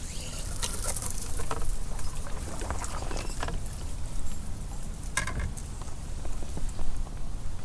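Wind rumbling on the microphone, with scattered small taps and clicks, the most prominent about five seconds in.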